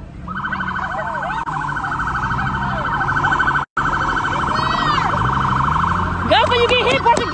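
Police car siren sounding a fast, evenly repeating warble, with a short dropout a little past halfway. Shrill sliding squeals come in near the end.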